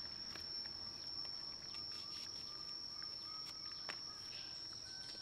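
Steady high-pitched insect drone, with faint scattered clicks and rustles as the baby macaques handle and eat apple pieces.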